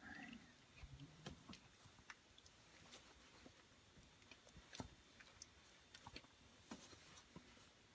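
A Chihuahua chewing food: faint, irregular clicks and crunches.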